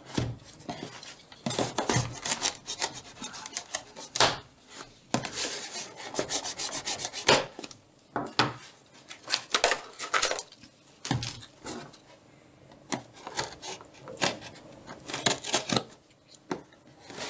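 Pocket knife blade slicing and scraping through packing tape on a cardboard box, in several runs of quick rasping strokes with short pauses, along with knocks of the box being turned over on a wooden tabletop.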